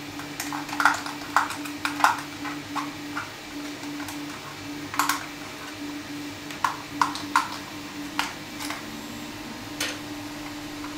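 Irregular clicks and taps of hard 3D-printed plastic parts being handled and pulled apart, over a steady low hum.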